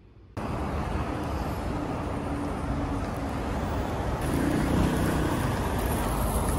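Street traffic noise: a steady rumble of passing road vehicles with engine hum rising and fading twice. It starts suddenly just after the start.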